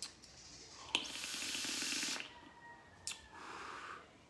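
A drag on a pod vape: about a second of hissing draw through the device, then a softer, quieter breath as the vapour is blown out.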